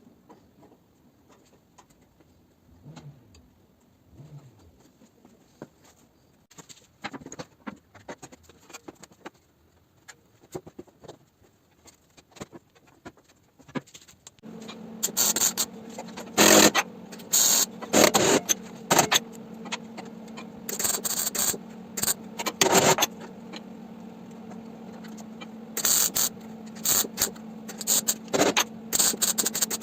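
Faint scrapes and clicks, then about halfway through a steady machine hum comes on, and over it come repeated short loud bursts of crackling hiss, each under a second long: a MIG welder laying tack welds on car-body steel.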